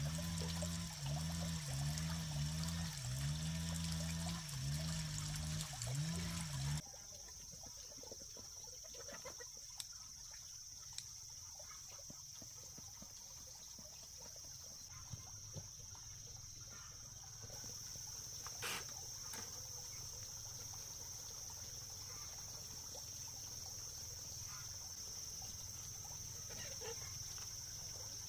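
Background music that cuts off about seven seconds in, leaving a steady high insect drone with a few faint knocks and scrapes of a shovel working soil.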